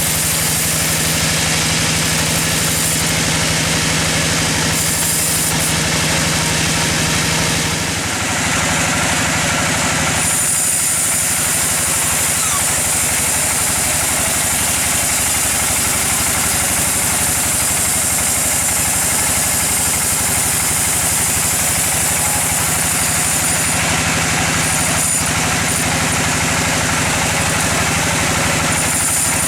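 Sawmill machinery running steadily: a continuous engine drone with a held low hum, which dips briefly about eight seconds in and changes texture a couple of seconds later.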